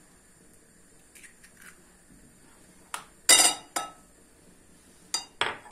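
Sharp clinks and knocks of kitchen bowls as an egg yolk is added to a glass mixing bowl of yogurt and flour and a small bowl is set down on the stone countertop. A loud cluster comes about three seconds in, with a few more clinks near the end.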